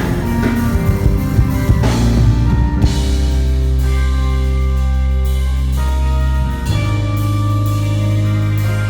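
Rock band music: drum kit hits over the first few seconds, then long held chords over a sustained bass note, changing chord about two-thirds of the way through.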